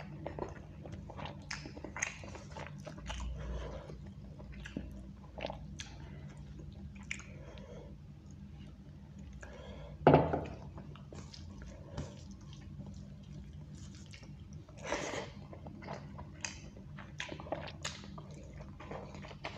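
Close mouth sounds of a person chewing and biting boiled egg and rice in curry, eaten by hand: many short clicks and smacks. A louder sound comes about halfway through, and a smaller one a few seconds later.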